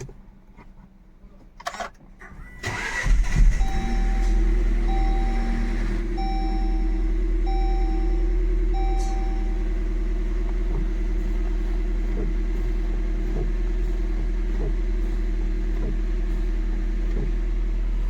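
Jeep Compass engine cranking and catching about three seconds in, then settling into a steady idle. This is the first start after an oil and oil-filter change. An electronic beep sounds five times, evenly spaced, soon after it starts.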